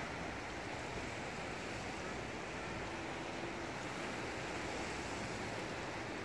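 Small lake waves lapping and washing on a pebble shore, a steady wash of water.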